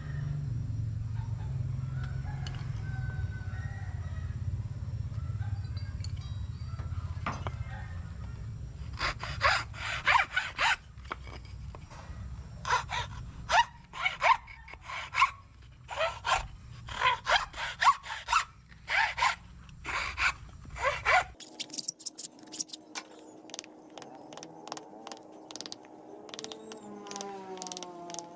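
Groups of quick rasping strokes from a hand tool scraping back and forth, each stroke a fraction of a second, over a low steady rumble. The rumble cuts off suddenly about three quarters of the way through, leaving a faint steady hum.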